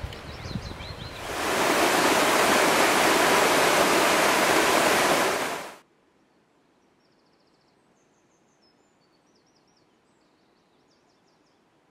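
Loud, steady rush of fast-flowing water, fading up about a second in and cutting off abruptly about halfway through. Small birds chirp faintly before it, and faint birdsong continues after the cut.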